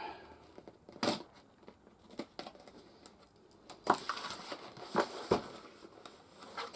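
Cardboard box and packing being handled and rustled as a soldering station is unpacked, with scattered knocks and clicks of parts being lifted and set down.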